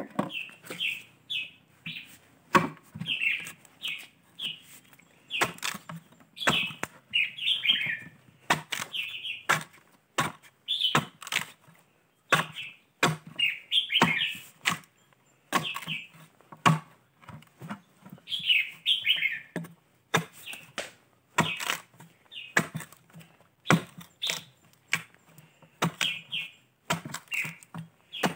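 A long-handled bar chisel chopping down into the soft pith of a hollowed fishtail palm log, in sharp irregular strikes about one or two a second. A bird chirps over and over in the background.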